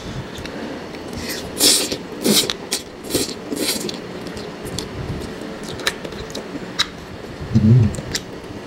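Close-miked eating of spicy mixed instant noodles: a quick series of hissy slurps in the first half, then chewing with a few sharp mouth or fork clicks. There is a short low hum near the end.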